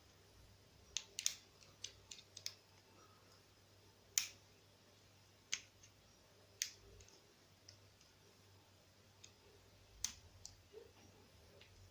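Lock picks and a tension wrench clicking faintly inside a Yale 220/51 padlock as its pins are picked: scattered sharp clicks at irregular intervals, the loudest about four seconds in and again near ten seconds.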